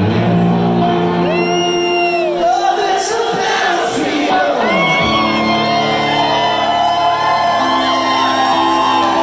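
A live rock band playing loudly in a large hall: electric guitar with a singing voice over it.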